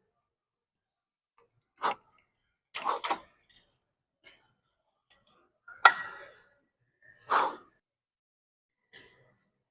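A handful of short separate knocks and clicks, about six in all with silence between them, the sharpest about six seconds in.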